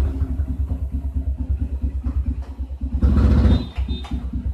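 150 cc motorcycle engine idling with a fast, even pulse, briefly revved up about three seconds in before dropping back to idle.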